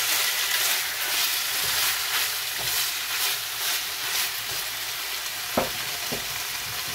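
Marinated beef strips searing in hot olive oil in a nonstick skillet: a steady sizzle, with scraping surges as a spatula spreads the meat around over the first four seconds or so. Then the sizzle goes on alone, broken by two short knocks near the end.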